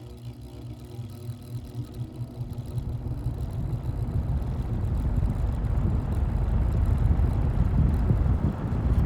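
Vintage Eskimo box fan's electric motor starting up on low speed: a steady low electrical hum, then the blades spinning up with a whir and rush of air that grows steadily louder. The motor's buzz is one the owner puts down to loose motor laminations.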